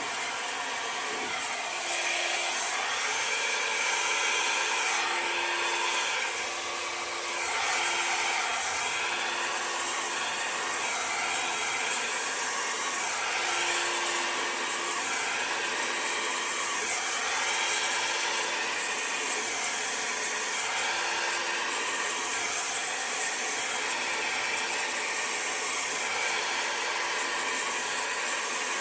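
Old hair dryer blowing steadily, a low hum in its sound coming and going and its level swelling and easing a little.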